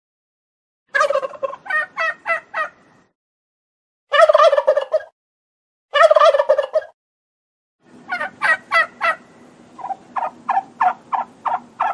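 Tom turkey gobbling, five bouts a second or two apart, each a quick run of rattling notes.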